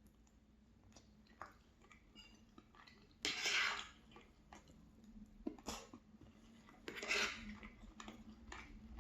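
Eating at a plate: quiet chewing with two short noisy bursts and a sharp click of cutlery against the dish.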